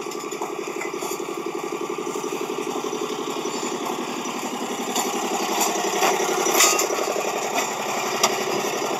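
Small utility-vehicle engine running steadily while driving along a farm track, with a few sharp knocks about five to seven seconds in.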